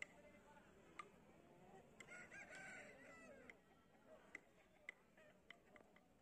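A rooster crowing faintly, about two seconds in, for about a second and a half, with a few sharp clicks scattered around it.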